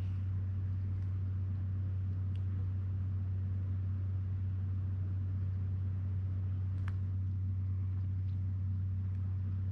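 A steady low hum, like a machine running, unchanged throughout, with a few faint clicks; the clearest comes about seven seconds in.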